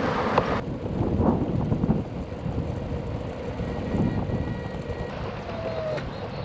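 Wind rushing over the microphone and the rumble of wheels on the path while riding at speed, loudest and brightest in the first half-second.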